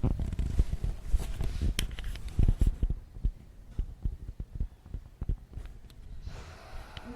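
Inside a Japanese commuter train: low running rumble with the clatter and knocks of wheels over the track. It eases off about three seconds in, and near the end a hiss and faint whining tones rise.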